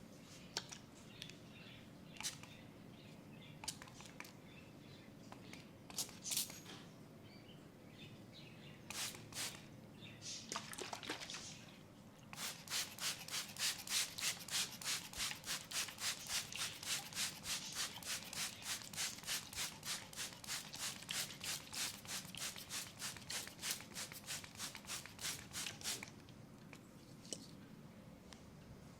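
Hands rubbing oil into a leg. At first there are scattered slick strokes, then about halfway through a fast, steady rubbing rhythm of about three strokes a second, which stops a few seconds before the end.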